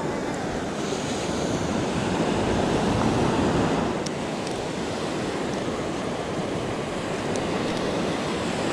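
Ocean surf washing onto a sandy beach, one wave swelling a couple of seconds in and easing off after about four seconds, with wind rumbling on the microphone.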